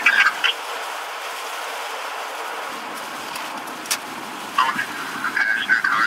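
Steady static hiss, with a single sharp click about four seconds in. Garbled voice chatter over a radio cuts back in near the end.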